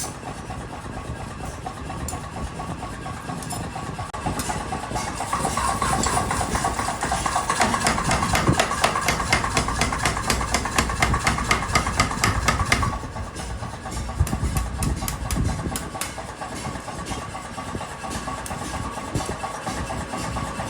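A motor-driven workshop machine running steadily, with rapid repeated metallic knocks, several a second, that get louder from about five seconds in and drop back about thirteen seconds in.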